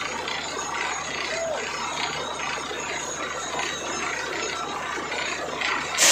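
Truck-mounted borewell drilling rig running as it drills, a steady mechanical noise with a clatter that repeats roughly twice a second. Near the end there is a brief, much louder burst of noise.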